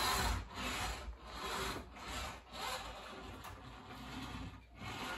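Toy truck being pushed back and forth on a wooden tabletop, scraping and rolling in repeated strokes.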